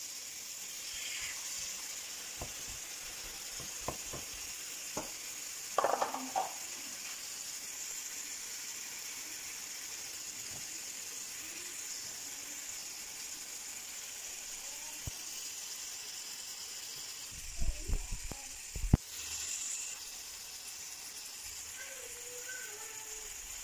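Lamb loin chops frying in melted garlic-and-herb butter in a pan, giving a steady sizzle. A few light knocks come along the way, with a short cluster of louder bumps about three-quarters of the way through.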